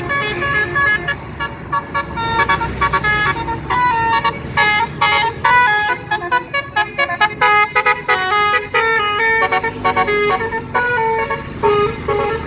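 Bus telolet horn playing a fast, continuous melody of short tooting notes that change pitch several times a second, over a low rumble.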